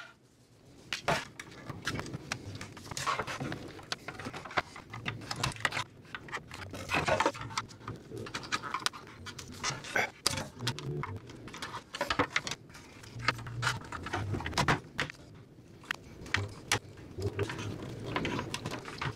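Hand pick tool scraping and clicking as it digs old sealant out of the channel of a plastic Jaguar XK8 headlight housing, with the housing being handled on a wooden workbench: irregular short scrapes and clicks.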